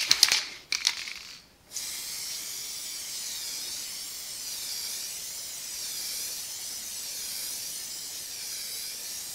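Aerosol can of Schmincke spray varnish rattling briefly as it is shaken, then spraying with a steady hiss from about two seconds in that swells and fades gently as the can sweeps across the picture.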